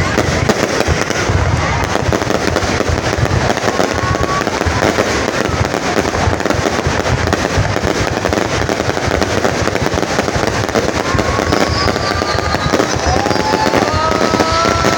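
A dense, continuous barrage of aerial firework shells bursting and crackling, one crack after another without a break. In the last few seconds several rising whistles from the fireworks overlap the crackle.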